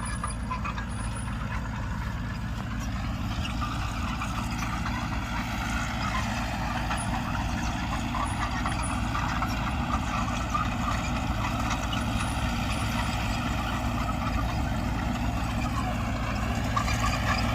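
Heavy diesel engine of earthmoving machinery running steadily, its pitch rising about three seconds in and dipping then rising again near the end.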